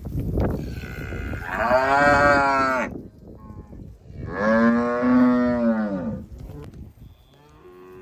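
Cattle mooing: two long, loud moos a couple of seconds apart, each rising and then falling in pitch, with a fainter moo starting near the end.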